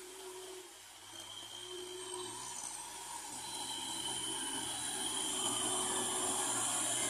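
Kubota MT6040 tractor's diesel engine running under load while its rear rotary tiller churns wet mud, growing steadily louder as the tractor draws near.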